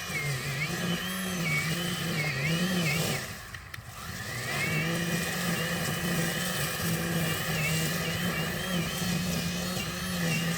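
EGO 56V cordless string trimmer's electric motor running at its slower first speed, its pitch wavering up and down as the line cuts through grass. It drops away briefly about three and a half seconds in, then spins back up.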